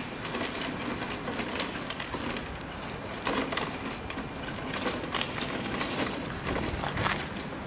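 Metal hand-truck cart carrying a stencil-spraying device, rattling and clicking irregularly as it is pulled over rough pavement.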